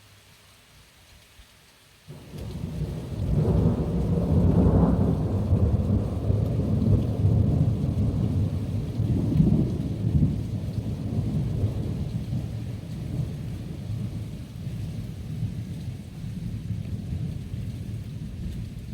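Thunder over light rain: a deep rumble starts abruptly about two seconds in, reaches its loudest within a few seconds, then rolls on and slowly fades.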